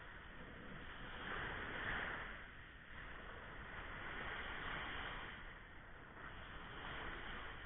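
Sea waves breaking and washing in, the surf rising and falling in surges every couple of seconds, loudest about two seconds in.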